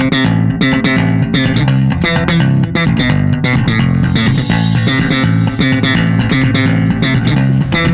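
Background music: a rock track with a busy bass guitar line and guitars over a steady beat.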